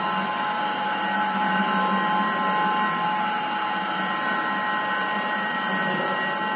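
High shear batch mixer running steadily: its electric motor and rotor make a constant hum with a steady whine of several high tones over a hiss.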